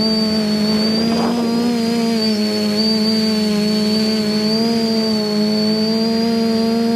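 Quadcopter's electric motors and propellers humming steadily as heard from on board, with a thin high whine above. The pitch wavers slightly as the craft holds and turns in the air.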